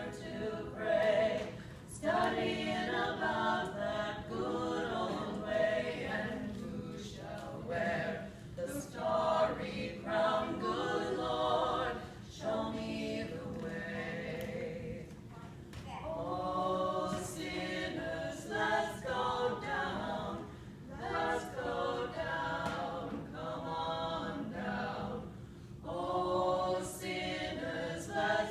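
Mixed church choir of men's and women's voices singing an anthem in phrases, with short breaks between them.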